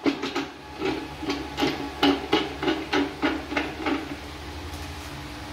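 Metal knocks and clacks, about three a second, from the cast-metal housing and adjuster of a 10-inch grinding mill being handled and worked by hand; they stop about four seconds in, leaving a steady low hum.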